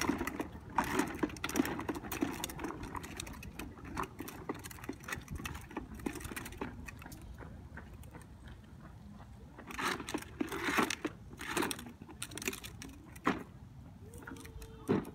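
Plastic wheels of a child's ride-on toy quad rolling over a concrete sidewalk, with an uneven run of clicks and rattles that grows busier about ten seconds in.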